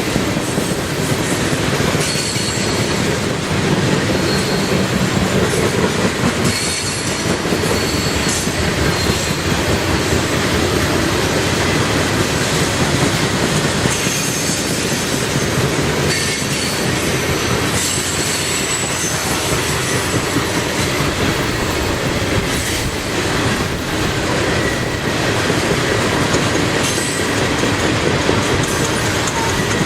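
Coal train rolling steadily past, its wheels clicking over the rail joints, with thin high-pitched wheel squeal coming and going.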